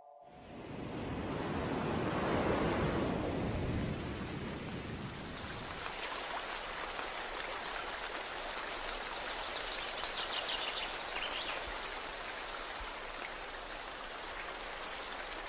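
Steady rushing hiss of water, opening with a low rumble that swells and fades over the first few seconds, with a few faint high chirps scattered through it.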